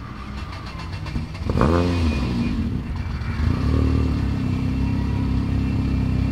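Lancia Delta Integrale Evo 2's tuned 2.0-litre turbocharged four-cylinder engine running at idle, with one quick rev up and back down about a second and a half in and a smaller blip around four seconds.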